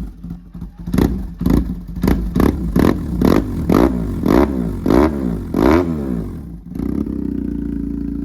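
BMW R1150's boxer-twin engine running through a newly fitted custom exhaust on its first start. The throttle is blipped in quick revs, about two a second. After about six seconds it settles to a steady idle.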